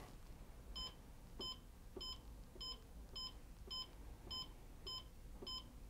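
Volumatic CountEasy money counting scale giving a short electronic key beep each time its orange arrow key is pressed, about nine beeps at an even pace of nearly two a second, each with a faint button click. Each beep confirms one step down through the scale's setup menu.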